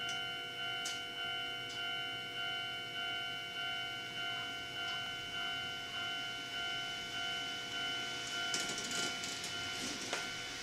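Japanese level-crossing warning bell ringing steadily, an electronic ding repeating about one and a half times a second. A short burst of rustling hiss comes near the end.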